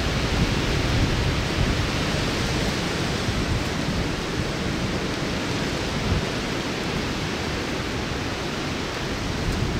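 Strong wind buffeting the microphone: a steady rushing hiss over a low, uneven rumble.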